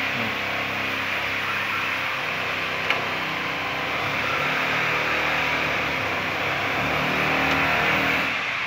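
Steady engine and traffic noise, a continuous hiss with a low hum under it.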